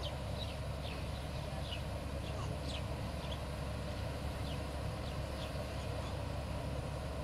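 A combine harvester runs steadily with its unloading auger engaged, pouring grain into a lorry. Short high chirps from birds sound over the steady machine noise.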